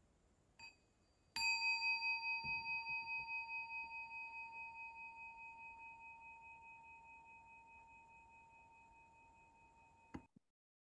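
A small meditation singing bowl, lightly touched once, then struck a second later, ringing with a clear, wavering high tone that fades slowly. It is cut off abruptly with a faint click near the end.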